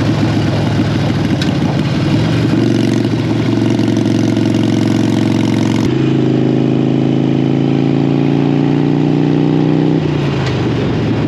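Motorcycle engine running under way, a steady engine note that climbs slowly in pitch for a few seconds, then drops near the end.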